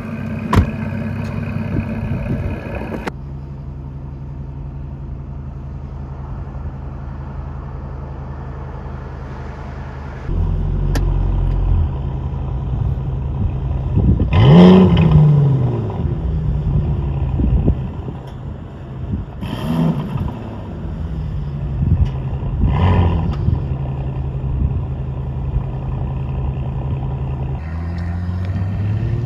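Aston Martin V12 test cars idling and being revved. A camouflaged prototype idles for the first few seconds. After a cut, another car idles with a low steady note, then gets several sharp throttle blips, the loudest about 15 seconds in and others near 20 and 23 seconds, before the engine note rises again near the end as it moves off.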